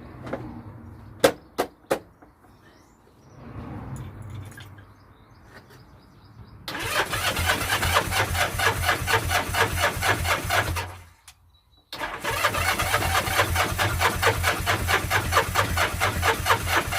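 Old 400 motorbike's electric starter cranking the engine in two long bursts, about four and six seconds, without it firing; the battery is low on charge. A few sharp clicks come first.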